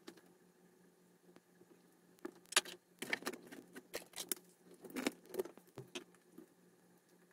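Small parts and tools being handled on a silicone work mat. A sharp click comes at the start, then scattered light clicks and clatter from about two to six and a half seconds in, over a faint steady hum.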